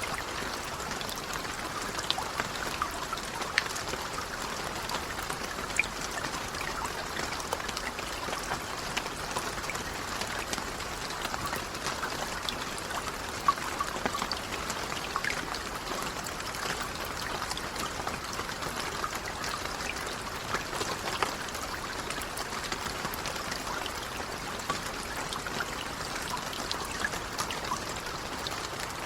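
Light rain falling steadily, an even hiss with many scattered ticks of single drops striking.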